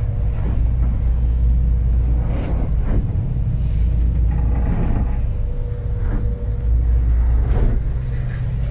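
Steady low drone of a Sargo 31 motorboat's engine heard inside the closed wheelhouse while running at about 9 knots, with a few dull thuds as the hull meets short, steep waves.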